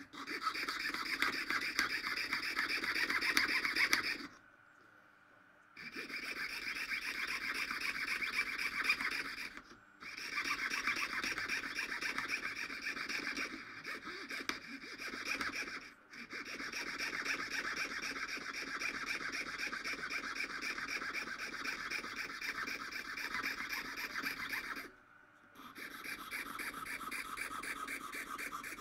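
Jeweller's piercing saw cutting a piece of mother-of-pearl shell: a quick, even rasping of saw strokes in runs, stopping briefly a few times.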